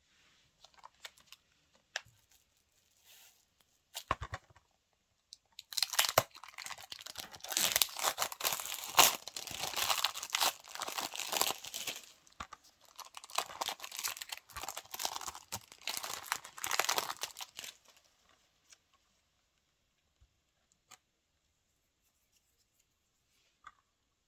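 Plastic packaging being torn open and peeled off a Blu-ray case, crinkling and tearing for about twelve seconds, with a few handling clicks before and after.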